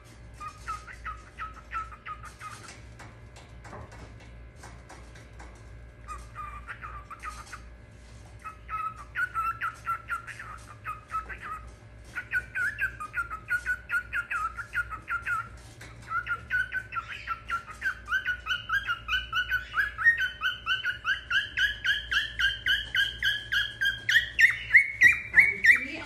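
Cockatiel singing: phrases of short, quick chirping notes, broken by pauses at first, then running on without a break and getting louder from about halfway through, climbing in pitch near the end.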